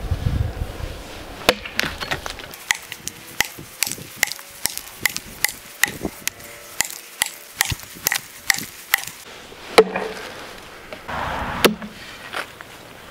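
Double-bit Michigan-pattern axe chopping into a log: a quick, even run of sharp knocks as the bit bites into the wood, then a couple of heavier single blows near the end.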